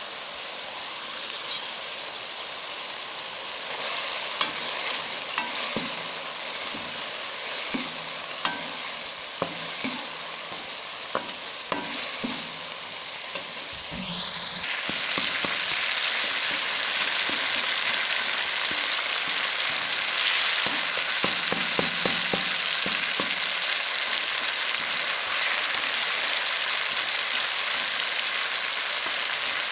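Onion-tomato masala with spices and salt frying in oil, sizzling steadily while a metal spoon stirs it and clicks and scrapes against the metal pot. The sizzle gets louder about halfway through.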